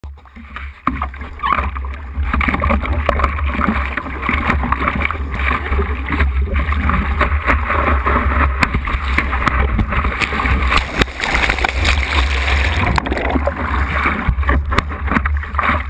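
Seawater rushing and splashing around the nose of a foam surfboard as it is paddled and then carried through breaking whitewater, over a steady low rumble.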